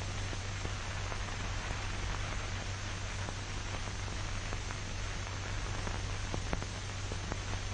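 Background noise of an old film soundtrack: steady hiss with a low hum and scattered faint crackles.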